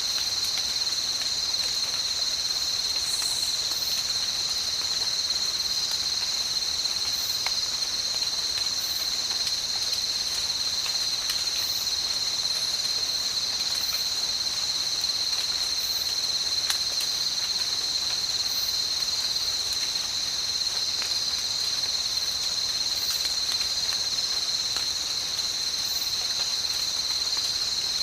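A tropical night insect chorus keeps up a steady, high-pitched shrill drone without a break, with faint scattered ticks over it.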